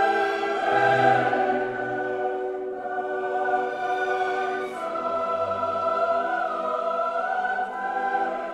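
Background music: a choir singing long held chords, with slow changes of note.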